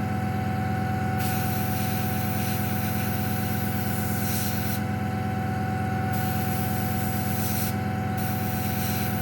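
Airbrush hissing in three bursts as paint is sprayed onto a plastic scale model, each burst stopping and starting again, over a steady electric motor hum.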